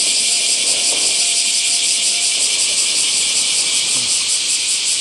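Loud, steady chorus of cicadas: a high hiss pulsing about four times a second.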